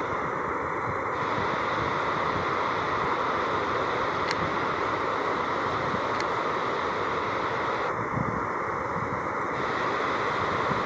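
Steady rushing of river water spilling over a low weir.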